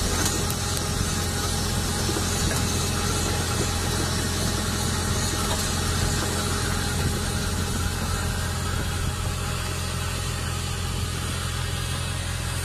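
Engine of a KIRPY asparagus harvesting machine running steadily at a constant low speed, an even low hum with no change in pitch.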